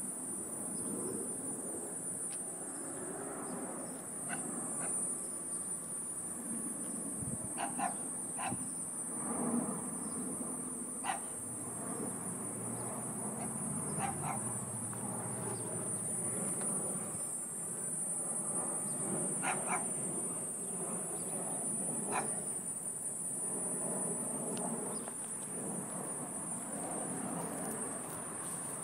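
A steady, unbroken high-pitched buzzing whine of unknown origin, coming from a tree and the overhead wires above it, over a low background rumble with a few brief sharp chirps.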